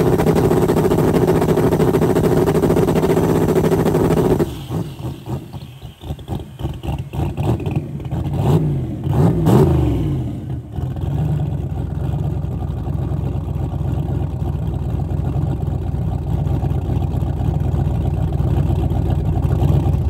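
Turbocharged 383 stroker small-block Ford V8 of a Fox-body Mustang drag car, heard at its dual exhaust tips: it idles fast and steady, then about four seconds in drops to a lower, uneven idle. It is revved up and down a few times around the middle, then settles into a steady idle.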